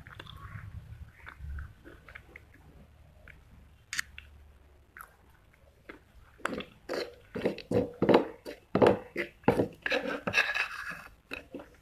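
Close-up crunching and chewing of hard baked clay pieces. It is quiet at first with a few scattered clicks, then a rapid run of sharp, loud crunches fills the second half.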